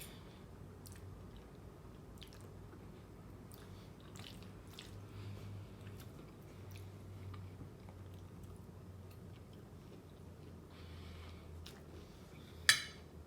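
A person chewing food close to the microphone, with soft wet mouth sounds and small clicks. A single sharp click stands out near the end.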